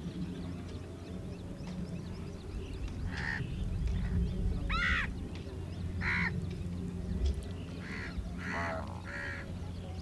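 Greater flamingos calling: about six separate calls in the second half, one of them a rising-then-falling call, over a steady low rumble.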